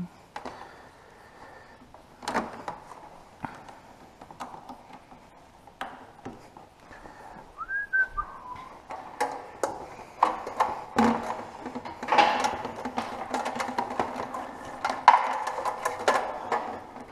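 Clicks, knocks and plastic rattles of hands working at an ATV's battery compartment and seat with jumper-cable clamps, growing busier about ten seconds in, with a faint steady hum joining soon after. A brief whistled note glides down about eight seconds in.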